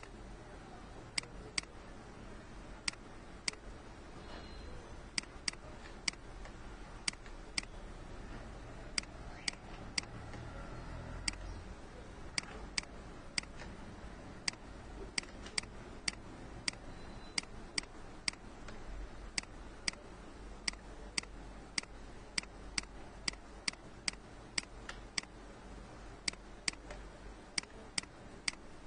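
Computer mouse clicking at an uneven pace, single sharp clicks and quick pairs every half second to second or so, over a faint low room hum.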